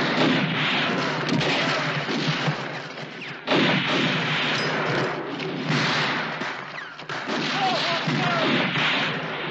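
Battle-scene film soundtrack: rifle gunfire and booms over a dense din, with men yelling. The sound jumps abruptly about three and a half and seven seconds in.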